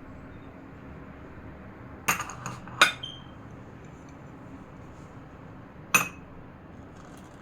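Kitchenware clinking: a quick cluster of three knocks about two seconds in, the last one ringing briefly, then a single ringing clink about six seconds in, over a steady low background noise.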